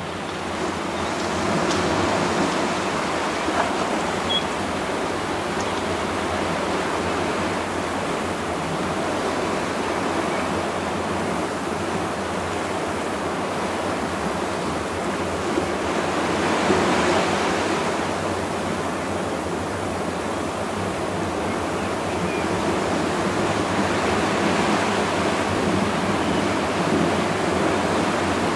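Steady rush of sea surf, fading in over the first two seconds and swelling louder at times.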